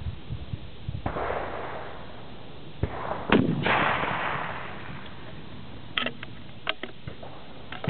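A target rifle fires one shot about a third of the way in: a sharp crack followed by a long, rolling tail. A fainter report with a rumbling tail comes about a second in. A few sharp clicks follow near the end.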